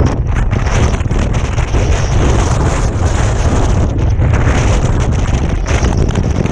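Wind buffeting the microphone: loud, steady wind noise with a heavy low rumble.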